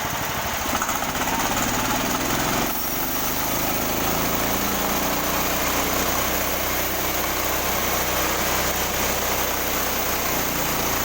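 Engine of a small sawmill running steadily, its note changing briefly about three seconds in.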